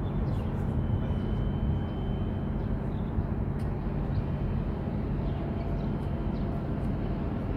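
Steady low rumble of a ship's engines, a constant hum with no rise or fall, from the departing container ship approaching along the harbour channel.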